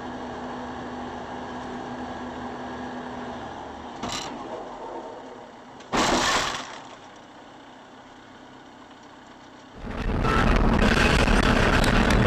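Steady vehicle road noise, a short knock about four seconds in, then a loud sudden crash about six seconds in: a vehicle collision, with cracking and breaking. Loud rushing wind and road noise sets in near the end.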